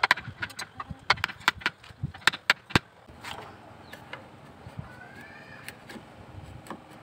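Hammer striking a plastic-handled wood chisel, cutting into a pine board: about ten sharp knocks, roughly three a second. About three seconds in they stop and give way to quiet hand paring of the wood.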